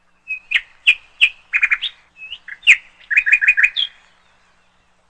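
A songbird singing two short phrases, each of sharp, high whistled notes followed by a quick run of repeated notes.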